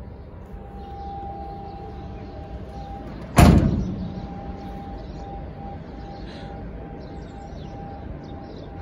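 Rear cargo door of a 2011 Ford Transit panel van slammed shut: a single loud metallic bang about three and a half seconds in, with a short ringing decay.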